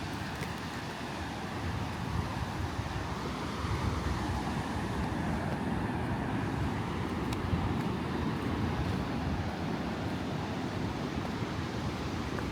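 Ocean surf washing onto the beach, rising and easing in a slow swell, with wind rumbling on the microphone.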